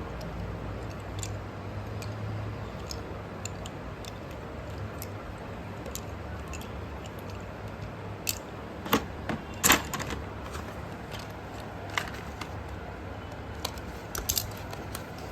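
Slate pencils being handled, giving scattered sharp clicks and cracks, the loudest grouped a little past the middle, over a steady low hum.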